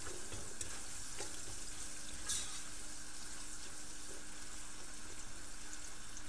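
Sliced onions and garlic frying in oil in a nonstick pan: a steady sizzle, with a few light clicks of the spatula as they are stirred.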